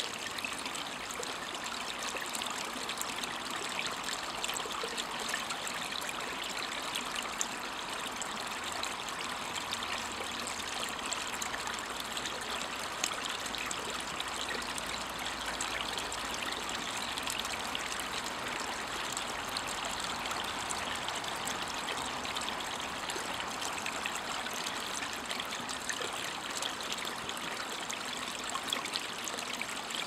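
Small brook babbling over a rock slab: a steady wash of running water with fine trickling and bubbling.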